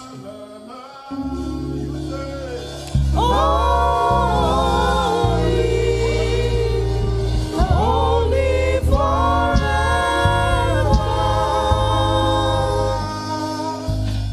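Gospel praise singing: a lead voice holding and sliding between long notes over a sustained keyboard and bass accompaniment, the music swelling about three seconds in and dying away near the end.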